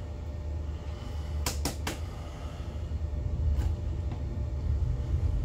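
Low, uneven rumble aboard a slow-moving motor yacht on its open deck, with three quick sharp clicks about one and a half seconds in and two fainter clicks a couple of seconds later.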